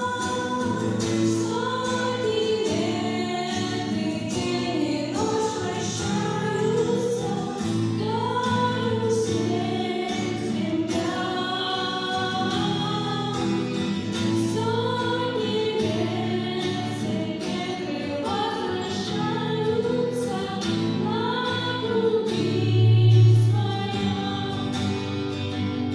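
Music: a song, sung vocals over instrumental accompaniment.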